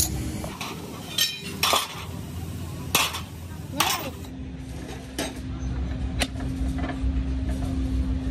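Metal parts and tools clinking and knocking, with about seven sharp strikes spread unevenly over a low rumble. A steady low hum sets in about halfway through.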